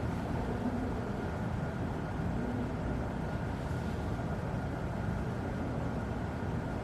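Steady room noise: a low hum and hiss with no distinct sound standing out.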